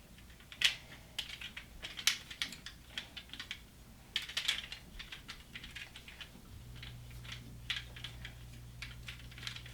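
Irregular light clicks and taps of small die-cast metal toy cars being handled. A faint steady low hum comes in about two-thirds of the way through.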